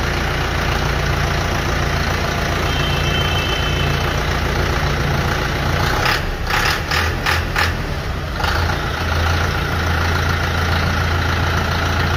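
YTO EF804 tractor's diesel engine idling out of gear for a sound check. About six seconds in, the engine note wavers and pulses unevenly for a couple of seconds, then settles back into a steady idle.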